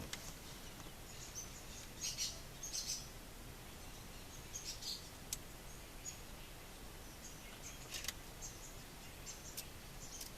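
Red-crowned woodpecker calling: short high calls in small clusters a couple of seconds apart, over a faint steady hiss, with one sharp click about five seconds in.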